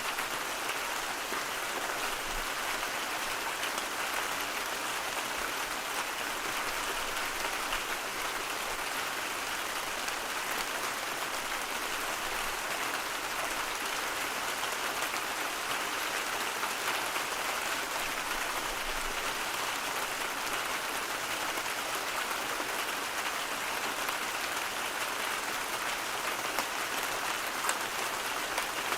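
Steady, even hiss of rain falling, with faint scattered drop ticks.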